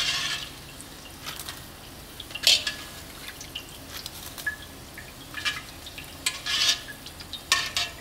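Crisp fried pork-fat chicharon being scooped from hot oil with wire-mesh strainers: the pieces rattle and scrape against the metal mesh in several short clatters, over a faint steady sizzle and drip of the frying oil.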